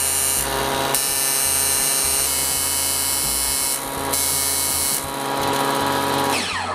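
Table saw running with a two-tooth blade, chopping silicon bronze welding wire pushed in by a motorized wire feeder. It makes a steady whine, with a harsher high hiss coming and going. Near the end it winds down, falling in pitch.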